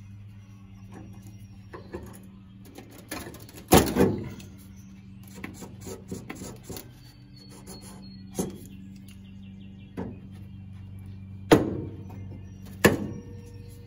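Background music with a steady low drone, over which come a handful of sharp clicks and knocks from hand tools on the car's sheet metal; the loudest pair near the end fall as the locking pliers clamped to the wheel-well metal are handled.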